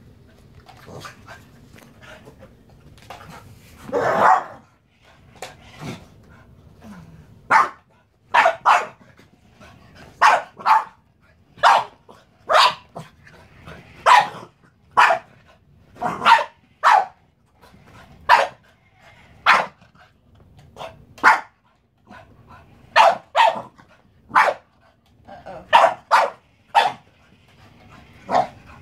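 Boston terrier barking at a remote-control toy car. One longer bark comes about four seconds in, then sharp barks follow roughly once a second, often two in quick succession.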